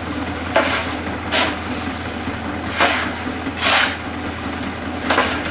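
Steyr 50 tractor engine running steadily, driving a concrete mixer, while gravel is shovelled into the turning drum in about five short bursts of grit noise.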